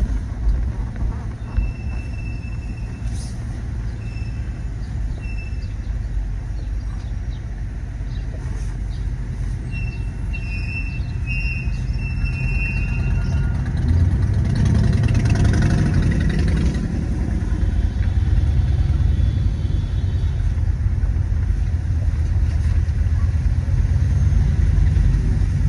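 Car cabin road noise while driving in traffic: a steady low engine and tyre rumble that swells louder about halfway through, as the car picks up speed. Short high beeps sound in two brief clusters, near the start and again about ten seconds in.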